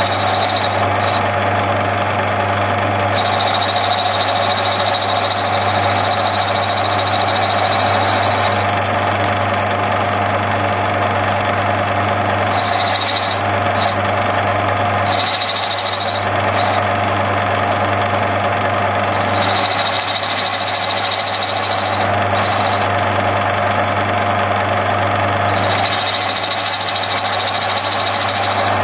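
Metal lathe running with a steady hum while a radius-turning attachment swings the cutter around a ball being turned. A high-pitched squeal from the tool cutting comes and goes several times, each stretch lasting one to five seconds.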